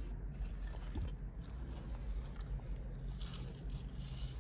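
Faint crunching and scraping of loose dirt and debris as a buried glass bottle is worked out of the soil by hand, with one small click about a second in.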